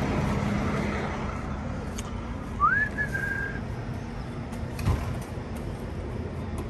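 A short whistled note about two and a half seconds in, sliding up and then held steady for under a second, over the low steady hum of an idling truck that fades. A couple of light knocks are heard, one about halfway through.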